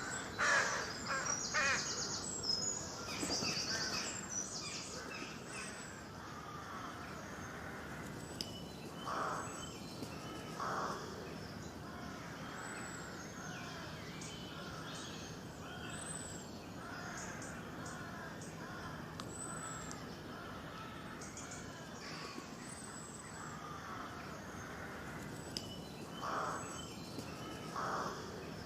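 Crows cawing, a busy run of calls at the start and then single harsh caws in pairs, with a small bird's high chirps repeating every couple of seconds over steady outdoor background noise.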